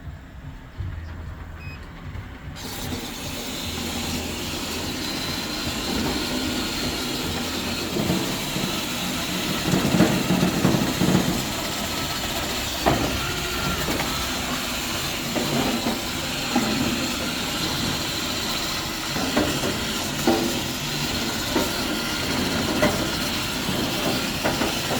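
A robotic grill-cleaning brush starts up about two and a half seconds in and runs over the grill grates. Its motors whir and its brushes scrape with a steady hiss, broken by irregular knocks and rattles as it bumps along, busiest a few seconds into the run.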